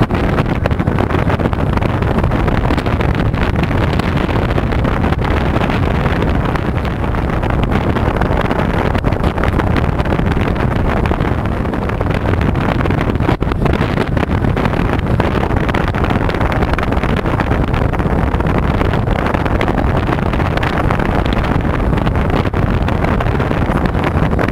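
Strong wind rushing over the microphone on an open fishing boat at sea: a steady, loud rush, heaviest in the low end.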